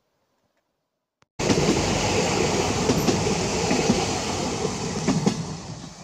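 Near silence, then about a second and a half in a sudden cut to a narrow-gauge steam train passing close by: a loud rolling clatter of wheels on the rails with a few sharp clicks, fading near the end.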